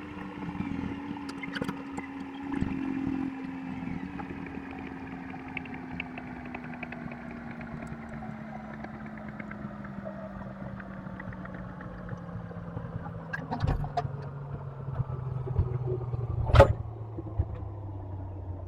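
Komatsu excavator's diesel engine running, its pitch falling slowly as the engine speed drops, with scattered clicks and knocks and one sharp bang near the end.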